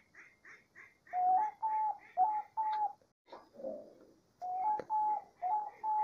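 Diamond dove cooing: two runs of four short coos, each note stepping up slightly in pitch partway through. Behind them, a softer, higher pulsing call repeats steadily about two and a half times a second.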